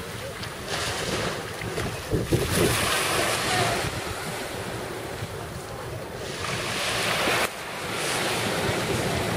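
Small waves washing in at the shoreline, the surf swelling and falling back every few seconds, with wind buffeting the microphone.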